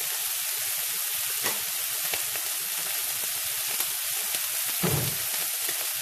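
Two steaks searing in a skillet on high heat, a steady frying sizzle with a few small pops. There is a short, dull low thud about five seconds in.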